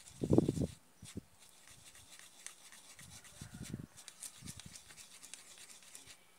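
Spatula pressing and scraping egg yolks through a small plastic sieve: soft, irregular rubbing, with a louder burst of scraping about half a second in.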